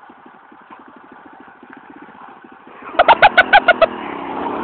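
Small single-cylinder motorcycle engine idling with a quick, quiet low putter; about three seconds in it gets much louder as the throttle is opened and the bike pulls away, with a rapid run of about eight short, loud, pitched pulses.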